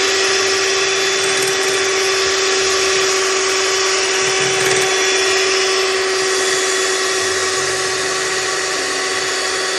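Electric hand mixer running at a steady speed, its beaters whipping cream in a bowl. The motor gives an even whine that holds one constant pitch.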